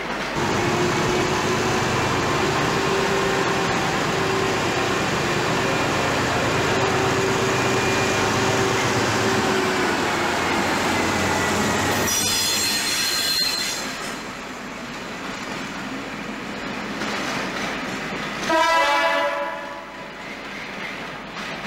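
British Rail trains running through a station: a multiple-unit train runs by with a steady hum and rail noise, then a Class 58 diesel freight locomotive passes with a brief high-pitched squeal. About 18.5 s in, a locomotive horn sounds for about a second as another locomotive comes out of the tunnel.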